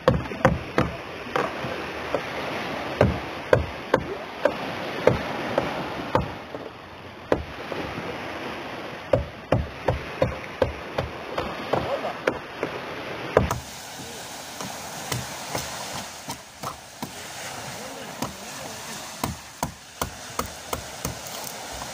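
A hammer striking a chisel against a fibreglass boat hull, chipping out damaged material: sharp, irregular blows, about one or two a second, over a steady background hiss.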